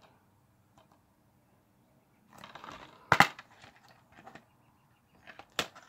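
Plastic DVD case being handled and opened: a brief rustle, then a sharp snap as the case's latch gives about three seconds in, followed by a few light clicks and taps and another click near the end.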